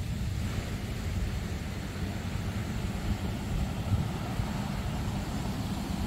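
Wind buffeting a phone's microphone outdoors: a steady, unevenly fluttering low rumble with a faint hiss above it.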